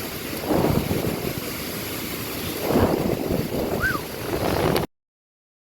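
Hurricane wind gusting hard and buffeting the microphone in surges; the sound cuts off suddenly near the end.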